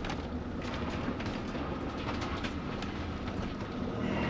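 Motorhome engine running at low speed as the van creeps into a parking spot, heard from inside the cab: a steady low hum with scattered light clicks and rattles.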